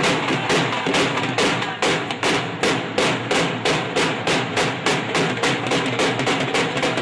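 Dhol drums playing a fast, even beat of about five strokes a second, with music.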